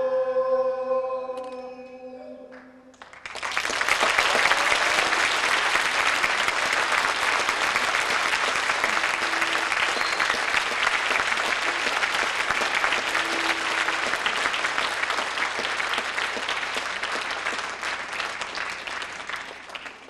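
A held final sung note from the chanting voices fades out, then audience applause breaks out about three seconds in and continues steadily, tapering off at the very end.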